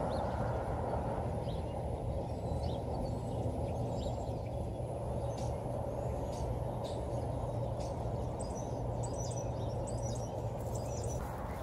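Steady low outdoor background noise, with faint bird chirps scattered through, most of them in the second half.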